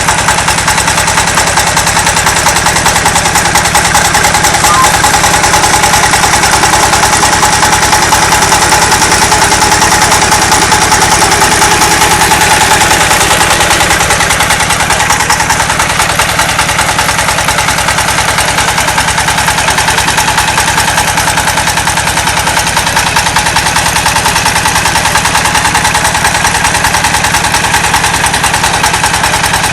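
Two-wheeled power tiller's single-cylinder diesel engine running loudly and steadily with a rapid, even chugging beat, driving a garlic harvester attachment.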